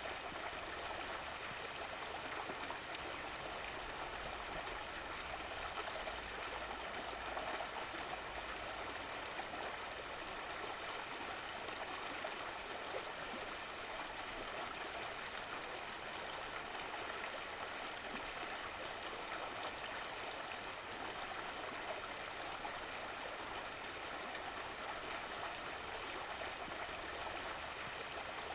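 A stream of running water flowing and trickling steadily, with no breaks or changes.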